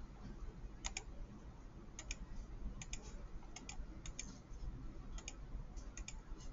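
Computer mouse clicking: about eight irregular double clicks of press and release, each sharp and short.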